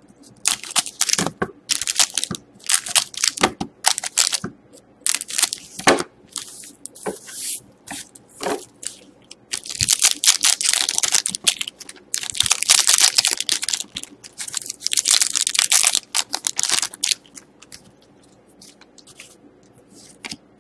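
Crinkly wrapper of a hockey card pack being handled and torn open, in many short, sharp crackles that grow into a dense stretch of crinkling about halfway through. Near the end only faint rustling of cards being handled is left.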